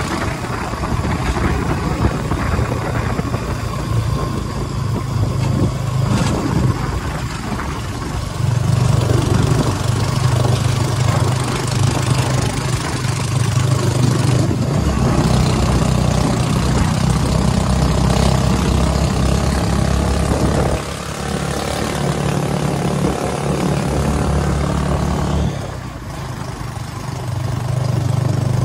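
Small motorcycle engine of a Philippine tricycle running on the move, heard from inside the sidecar with road and wind noise. The engine note rises and falls with the throttle and dips briefly twice in the last third.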